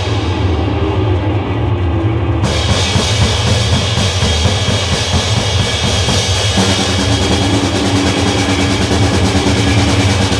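Harsh noise music: a loud, unbroken wall of distorted noise over a heavy low drone. About two and a half seconds in it turns brighter and hissier, and about six and a half seconds in steady humming tones join the low end.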